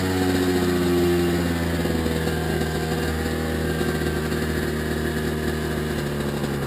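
Kawasaki KX85 two-stroke dirt bike engine running at a steady low speed. Its pitch eases down slightly about a second in, then holds steady.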